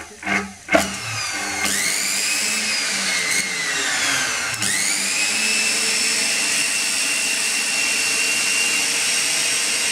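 Brushed juicer motor driven through a power drill's variable-speed trigger switch: a few clicks, then the motor whines up to speed. Its pitch falls as it slows, then it revs back up and holds a steady high whine.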